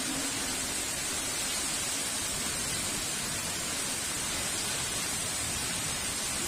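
Heavy rain falling steadily, an even hiss with no thunder in it.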